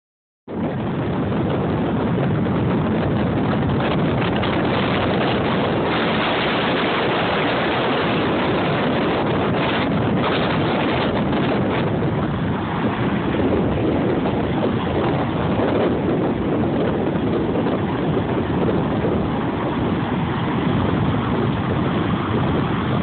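Heavy storm surf from a hurricane offshore breaking on the beach, with strong wind buffeting the microphone: a loud, steady wash of noise.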